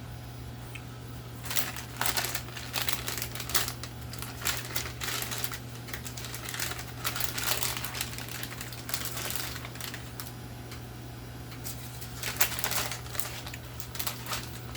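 Irregular crinkling and rustling of crinkly wrapping as slices of cheese are handled and torn, with short clicky bursts coming and going from about a second and a half in, over a steady low hum.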